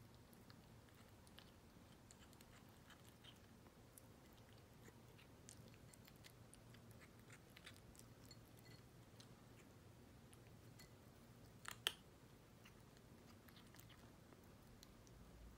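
A kitten chewing its food, heard as faint scattered crunching clicks, with one sharper, louder click about twelve seconds in.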